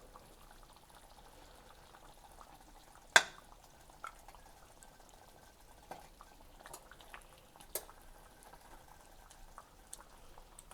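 Chicken and potato stew being dished out of the pot onto a plate: faint liquid sounds of the stew being scooped, with a few light clinks of the serving utensil, the sharpest about three seconds in.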